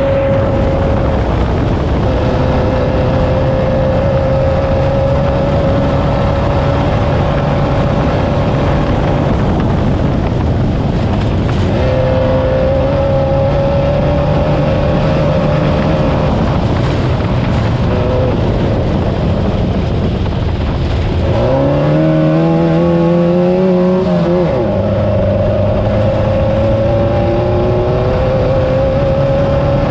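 Air-cooled VW engine of a Class 9 off-road race car running hard under load. Its note climbs slowly, falls back and climbs again a few times, with a busier, higher-pitched stretch about two-thirds of the way in.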